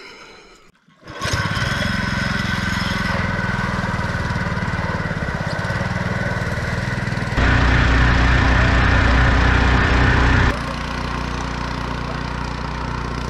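Small engine on a longtail outboard running steadily under way, coming in about a second in. It grows louder for about three seconds in the middle, then drops back.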